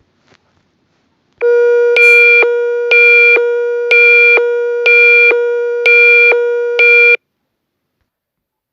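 Electronic emergency alert tone: a steady low buzzing tone with a higher beep pulsing over it about once a second, six times. It starts about a second and a half in, lasts about six seconds and cuts off sharply.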